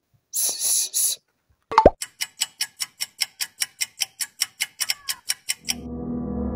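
Dubbed comedy sound effects: a short 'plop' that glides down in pitch a little under two seconds in, then fast clock ticking at about six ticks a second, which gives way near the end to a steady low gong-like drone.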